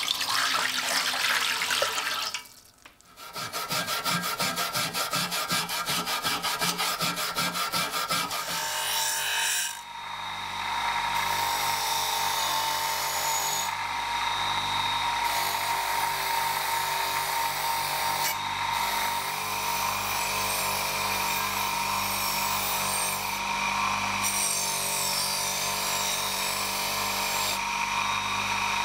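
Water sloshing in a metal tray around the submerged blade for the first two seconds. Then about six seconds of evenly repeated rubbing strokes. From about ten seconds in, a bench-mounted electric motor spinning a wire wheel runs steadily with a hum and a steady whine.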